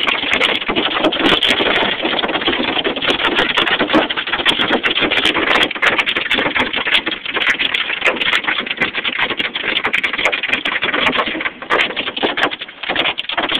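Hailstones pelting down in a dense, rapid clatter of impacts over a steady hiss, briefly softer about twelve seconds in.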